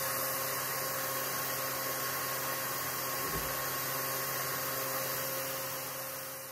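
Steady whirring hiss with a low hum from a diode laser engraver on a CNC mill, the kind of sound its cooling fan and machine electronics make while it burns lines into plywood. There is a soft knock about halfway through, and the sound fades out near the end.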